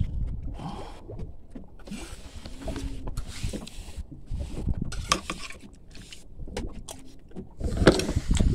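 Steady low rumble aboard a small fishing boat at sea, with sharp clinks of a metal spoon against a plate now and then.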